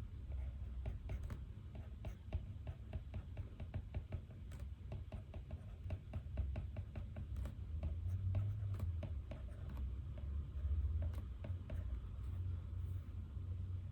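Pen writing on paper: quick light strokes and taps, several a second, over a steady low room hum.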